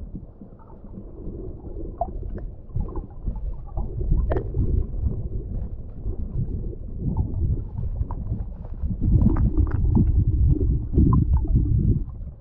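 Muffled underwater rumbling and gurgling of creek water, heard through a GoPro's waterproof housing, with scattered small clicks; it grows louder about nine seconds in.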